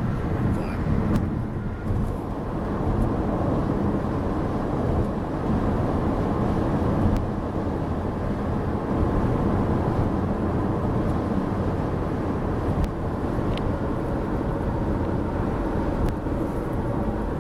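Steady road and engine noise inside a car's cabin at driving speed, with a few faint ticks.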